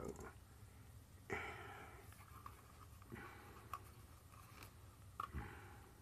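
Faint handling: a few light clicks as a knife blade, used in place of a screwdriver, works against a small screw on a hard drive enclosure, with three short breaths in between.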